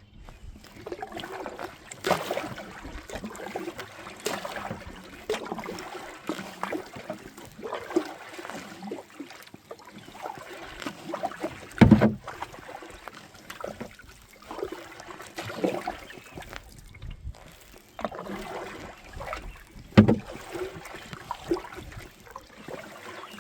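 Paddling a kayak: a splash and drip of the paddle in the water about every two seconds. Two sharp knocks stand out, about twelve and twenty seconds in.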